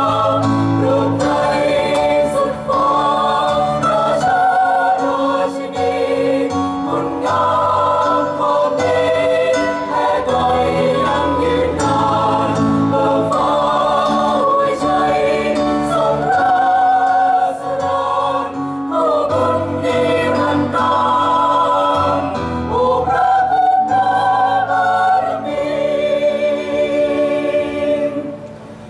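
Mixed choir of men's and women's voices singing in parts, phrase after phrase with held notes, with a brief pause near the end.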